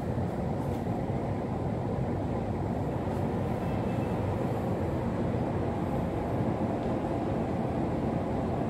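Steady low hum inside a stationary electric commuter train car, standing at a platform with its doors open before departure.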